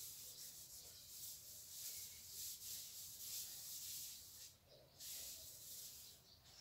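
Whiteboard eraser wiping across a whiteboard in repeated strokes: a faint, hissing rub with a short break about four and a half seconds in.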